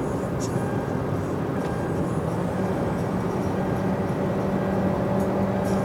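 Car driving at speed: steady road and engine noise with a low hum that grows stronger about halfway through.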